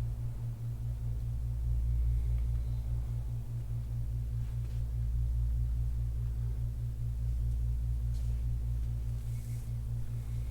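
Steady low hum with a rapid, even pulsing throb, like machinery running in the room.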